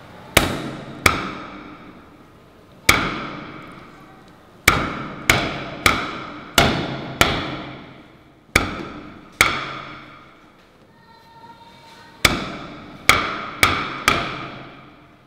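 The back of an axe head striking a wooden chopping block again and again, smashing small round fruits on it: about fourteen sharp blows, each with a ringing tail that dies away, with a pause of nearly three seconds between the two groups of blows.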